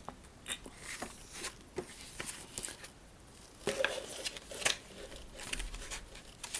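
Paper rustling and crinkling as a model kit's printed instruction sheets are handled and unfolded over the open box of bagged plastic sprues: scattered small rustles and clicks, busiest a little past halfway.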